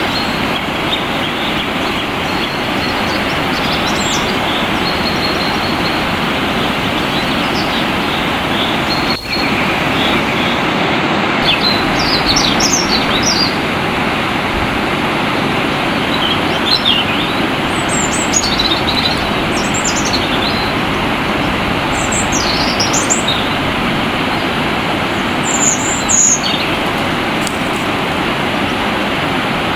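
Flowing water making a steady, loud rushing noise, with songbirds giving short, high chirping phrases over it, more often in the second half.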